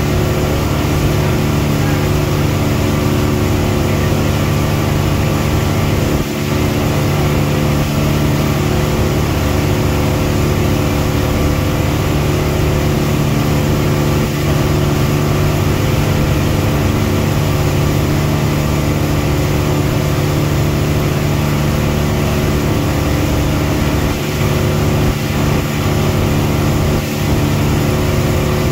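Boat engine running steadily at cruising speed, heard on board: an even, unchanging hum with a hiss of wind and water over it.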